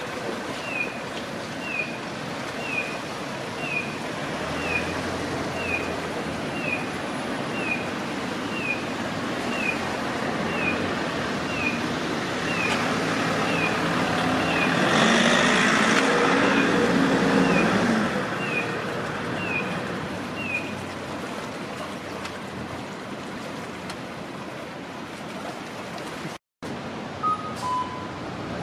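A Kyosan type 21 imitation-sound pedestrian crossing signal plays its electronic 'piyo-piyo' chick chirps: short falling chirps, about one a second, over traffic noise that is loudest midway as a vehicle passes. The chirps stop about two-thirds of the way through. Near the end, after a brief break, the signal's two-note 'kak-koo' cuckoo call starts.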